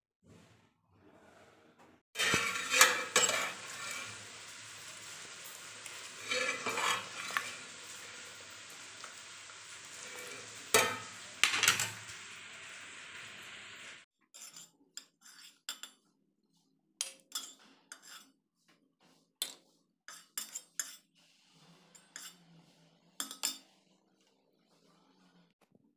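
Home kitchen cooking sounds: a steady hiss with metal utensils clinking against steel cookware for about twelve seconds, then it cuts to scattered light clicks and taps.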